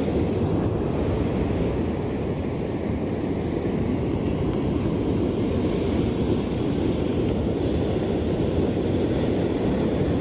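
Steady low rumble of wind on the microphone and surf breaking on a sandy beach.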